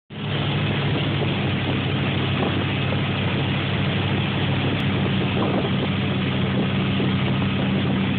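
Tow boat's engine running steadily at pulling speed, a low even drone, over a constant rush of water churned up in the wake.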